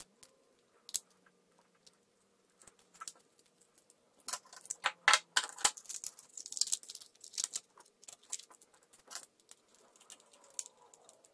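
Small parts of a 1/64 scale New Holland combine model clicking and rattling as it is handled and fitted back together, with a dense run of clicks and light scraping in the middle.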